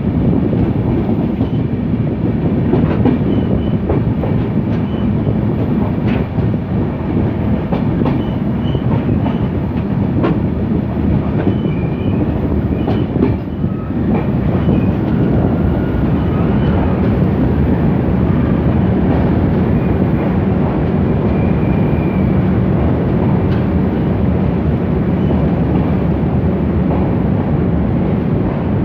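Passenger train running along the track, heard from aboard a double-decker express coach: a steady loud rumble with wheels clattering over the rails, and now and then a faint short high squeal.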